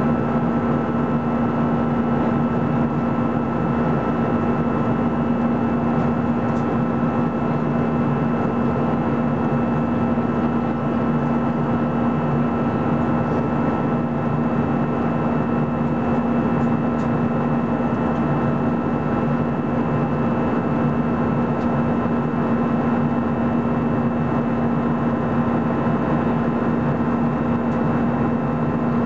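Steady in-flight cabin noise of an Airbus A320-214, heard from inside the cabin beside the wing: its CFM56-5B turbofan engines and rushing airflow make an even, unchanging drone. A constant low hum sits above it, with fainter steady tones higher up.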